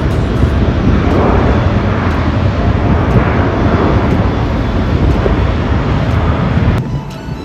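Jet airliner's engines, a loud steady rushing rumble, cutting off abruptly near the end.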